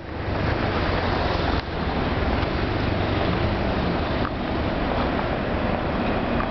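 Road traffic on a wide city boulevard: a steady rush of cars driving past, one passing close about four seconds in. Near the end a faint high steady tone comes in as a tram approaches along its tracks.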